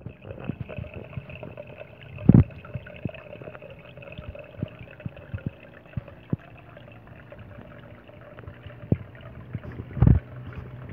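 Fish-tank air pump and water running with a steady hum, under many small scattered clicks and two dull thumps, about two seconds in and near the end.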